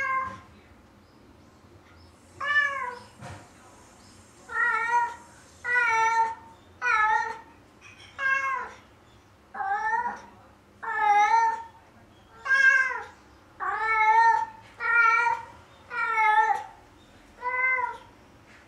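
Domestic cat meowing over and over: a dozen or so drawn-out, wavering meows, about one a second.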